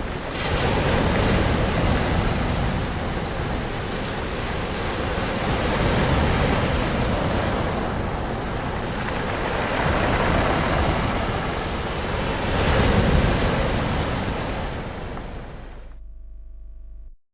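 Ocean waves breaking and washing on the shore: a steady rush of surf that swells louder in slow surges every four or five seconds. Near the end the sound thins and cuts off abruptly.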